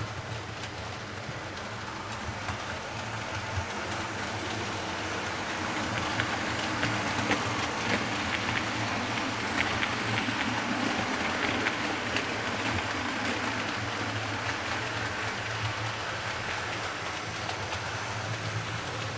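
OO gauge model train running on the layout's track: a steady rumble of wheels with light clicking, swelling as it passes in the middle and easing off toward the end.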